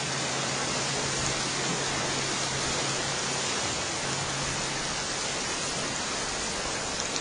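Steady, even rushing noise of sea surf and wind, with a low steady hum underneath that fades out briefly about halfway through.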